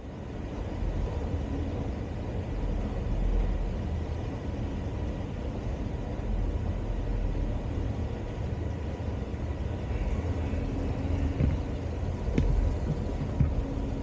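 Metro train running underground: a steady low rumble, with a faint hum coming in about ten seconds in and a few light knocks near the end.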